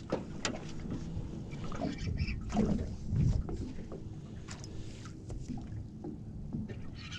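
Irregular clicks and knocks of fishing gear and boat handling over a faint steady hum, while a flathead is being fought on the line.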